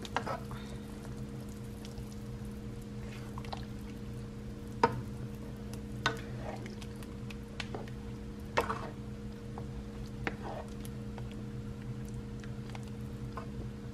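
Pork belly simmering in water in a pan, stirred with a plastic spoon: the liquid sloshes and squishes, with a few short knocks of the spoon against the pan, over a steady low hum.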